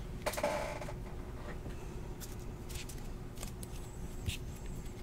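Trading cards being flicked through by hand, slid off a stack one at a time: faint scattered clicks and rustles of card stock, with a brief louder rustle about half a second in and a faint steady hum underneath.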